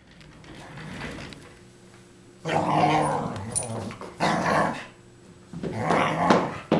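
A curly-coated dog growling in play as it wrestles and wriggles against the couch cushions, in three rough bouts starting about two and a half seconds in.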